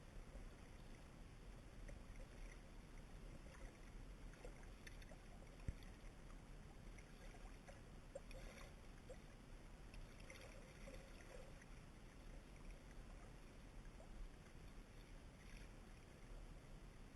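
Near silence: a faint low rumble with scattered faint clicks and crackles, and one sharper click about six seconds in.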